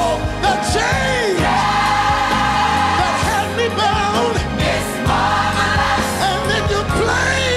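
Gospel choir singing long held chords over a live band with drums.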